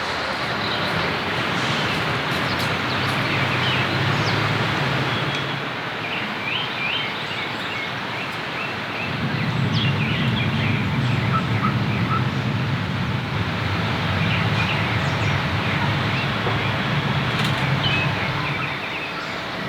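Steady heavy rain, with birds chirping about midway. A low rumble rises under the rain twice, the second time longer.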